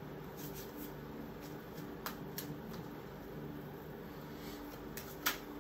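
Tarot deck being shuffled by hand: soft card sounds with a few sharp snaps, two close together about two seconds in and one near the end, over a steady low hum.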